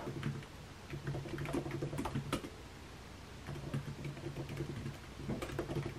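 Typing on a computer keyboard: irregular light key clicks over a low hum that comes and goes.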